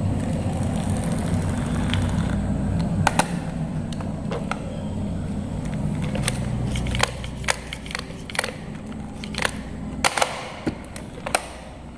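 Marbles rolling down a wooden marble run: a steady low rolling rumble over the first seven seconds, then a string of sharp wooden clacks as marbles drop and knock against the track pieces.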